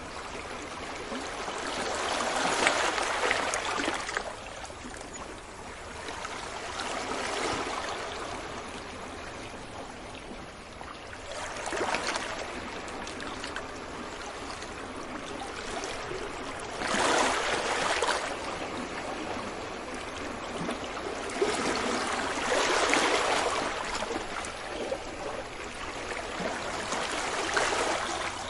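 Sea waves breaking on a beach and washing back, a steady rush of surf that swells louder every four to six seconds.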